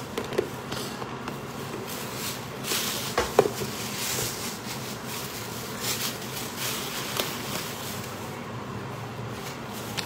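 Plastic bag rustling and crinkling as it is handled and knotted, with a couple of sharp knocks a little over three seconds in.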